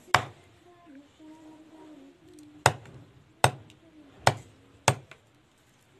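A large knife chopping chicken pieces on a round wooden chopping block: five sharp chops, one at the start and four more spaced under a second apart in the second half.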